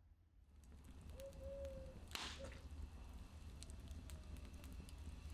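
Open wood fire crackling faintly with scattered small pops, and one louder hissing pop a little over two seconds in.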